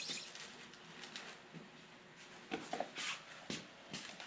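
Gloved hands handling a wooden bee package box on a sheet of cardboard: faint rustling and a few light knocks, clustered in the second half.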